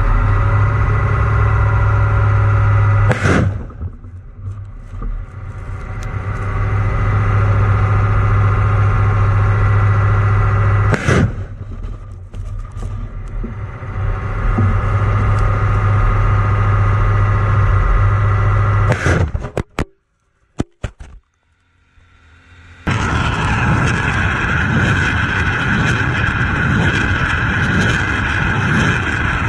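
A HIMARS truck-mounted rocket launcher firing three rockets about eight seconds apart, each a sudden sharp blast, over its diesel engine running steadily. After a brief dropout, a rougher steady engine-and-wind noise follows.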